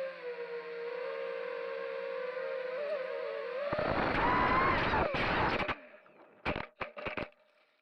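The brushless motors and 5-inch three-blade props of an Eachine Falcon 250 FPV racing quadcopter, heard through its onboard camera, whine at a steady pitch that wavers slightly. A little over halfway in, a loud rough noise takes over for about two seconds, followed by a few short bursts before the sound stops.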